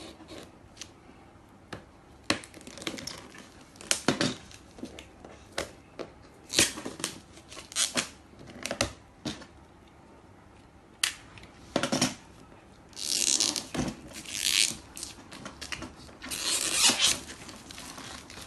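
Packaging being handled while a power drill is unboxed: scattered knocks and clicks, with longer crinkling and tearing rustles twice in the second half.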